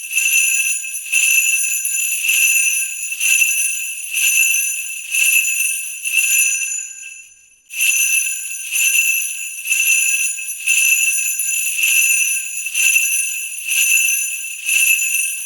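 Sleigh bells shaken slowly in a steady rhythm, about one jingle a second, each one ringing on into the next. The ringing dies away about seven and a half seconds in, then the shaking starts again at the same pace.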